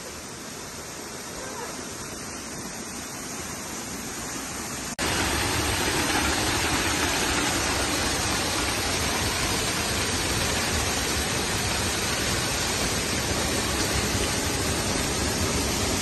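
Waterfall pouring into a pool: a steady rush of falling water that steps suddenly louder and fuller about five seconds in.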